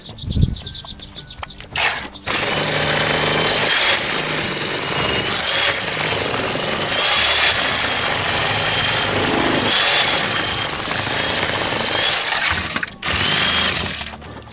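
Electric demolition hammer chiselling into a masonry wall, hammering without a break for about ten seconds from about two seconds in, stopping briefly, then hammering again for a second near the end.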